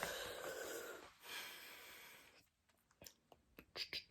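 A person breathing close to the microphone: a long breath, then a second, softer one, followed by a short near-silent gap and a few faint sharp clicks near the end.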